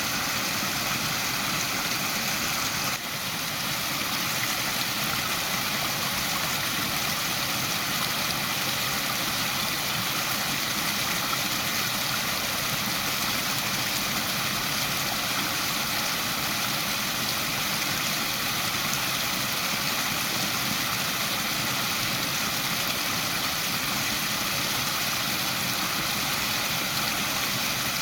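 Waterfall, water falling and splashing in a steady rushing hiss, dipping briefly about three seconds in.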